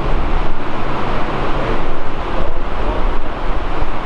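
Wind buffeting the microphone: a loud, gusty rumble over a steady rushing noise.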